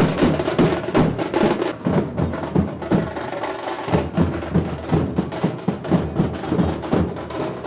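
Music driven by a fast, steady drum beat, about three to four strokes a second.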